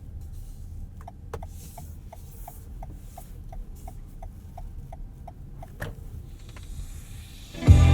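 Low road and tyre rumble inside the cabin of a moving Toyota Highlander Hybrid, with a light, regular ticking of about three ticks a second that runs for several seconds. Music from the car's sound system starts near the end.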